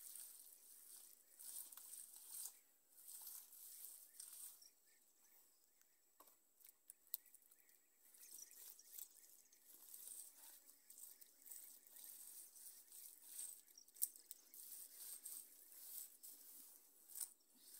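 Faint, uneven swishing and scraping of bare hands smearing a wet cow-dung and soil mixture across an earthen floor, in strokes that come and go every second or two, with a few light clicks.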